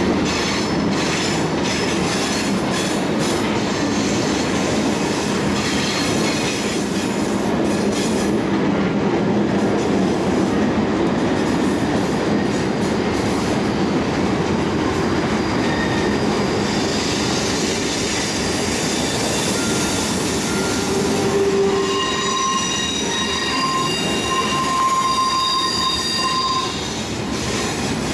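Loaded ballast train cars rolling slowly past: a steady rumble of steel wheels on rail with clicks at the rail joints. From about halfway through, high-pitched wheel squeal comes and goes as the cars take the curve.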